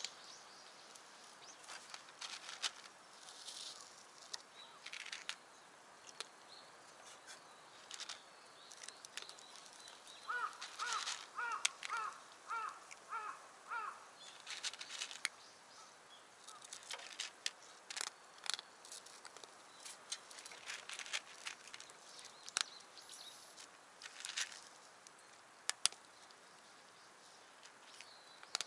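Rustling of dry grass and reeds with scattered sharp clicks and taps as a branch is moved over weathered wooden boards. In the middle a bird calls about eight times in quick, even succession.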